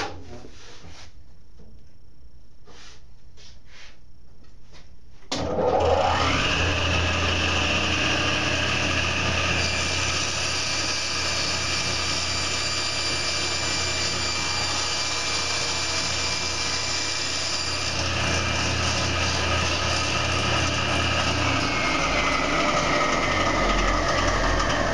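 A Steel City table saw is switched on about five seconds in, and its motor whines up to speed within a second. It then runs steadily while the blade rips a board lengthwise along the fence, with added cutting noise in the middle. Near the end the saw is switched off, and its whine falls in pitch as the blade spins down.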